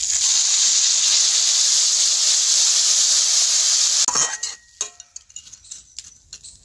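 Tamarind water poured into a hot metal wok of fried small fish, sizzling loudly in the oil; the sizzle cuts off about four seconds in. After that a metal spatula clinks and scrapes against the wok a few times as the fish are stirred.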